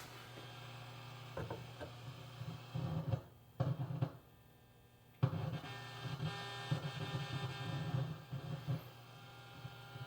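Hiss and hum from the Bally AS-2518-50 pinball sound board through the machine's speaker, a sign that the repaired board is not yet working right. It cuts out abruptly twice and comes back. A few faint clicks sound early on.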